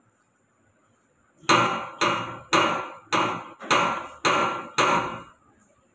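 Seven loud, sharp knocks, evenly spaced a little under two a second, each ringing out briefly.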